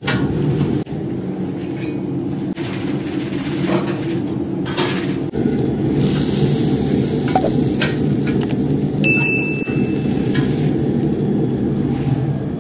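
Steel spatula and knife clinking and scraping on a steel flat-top griddle as folded birria tacos are cut and lifted, over a steady low hum. About nine seconds in, a single high chime rings for about a second.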